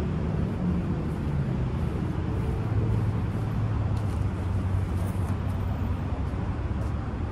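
A motor vehicle engine running steadily: a low rumble with a hum that settles lower and steadier about three seconds in.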